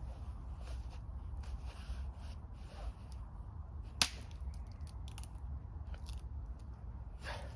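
Gear and clothing being handled, with soft rustling, one sharp click about four seconds in and a few fainter clicks after it, over a steady low rumble.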